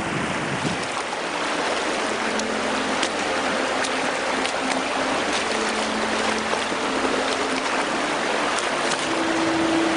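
Swiftly flowing river rushing steadily.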